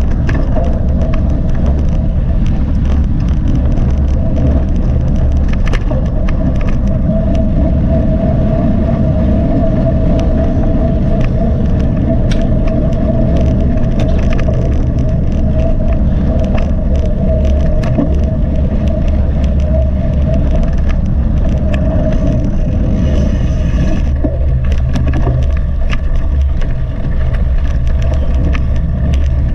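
Mountain bike ridden over rough ground, heard from a GoPro carried on the ride: a loud, steady rumble with many scattered clicks and knocks. A steady hum runs from a few seconds in until about two-thirds of the way through.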